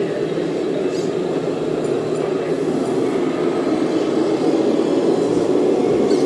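Radio-controlled model heavy-haulage truck running along the layout, a steady mechanical running sound that grows a little louder near the end as the truck comes close.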